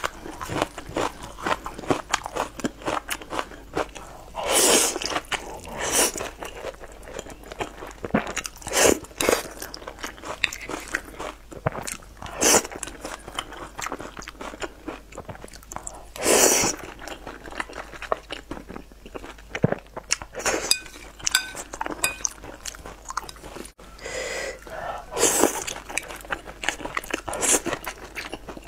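Close-miked chewing of saucy wide flat noodles: a steady stream of wet mouth clicks and smacks, broken every few seconds by a longer, noisier slurp as a mouthful of noodles is drawn in.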